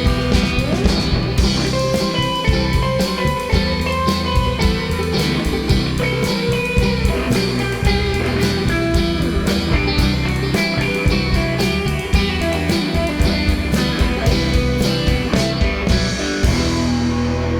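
Instrumental rock music from a band: guitar over a steady drum beat. About a second before the end the drums stop, leaving held low notes ringing.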